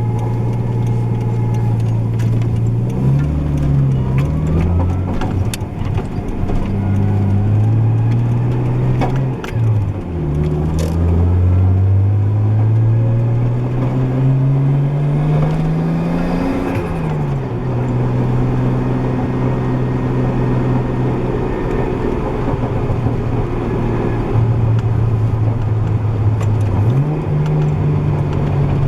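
Nissan RB20DET turbocharged straight-six running through a cat-back exhaust with the muffler's sound deadening gutted out. It holds steady revs for stretches, with brief rises and falls in pitch. About ten seconds in, one long pull climbs steadily in pitch for around six seconds, then drops away quickly.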